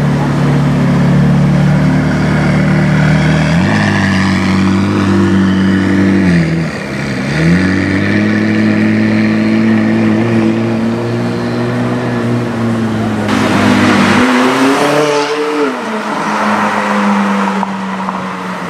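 McLaren 675LT Spider's twin-turbocharged V8 exhaust running at low revs as the car pulls away slowly. The revs dip and pick up again once about seven seconds in, and later give a short rise and fall.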